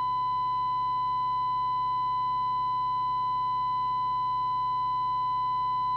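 Steady, unbroken test tone from a signal generator, received by a Midland M5 CB radio and played through an external speaker, with a faint low hum beneath it.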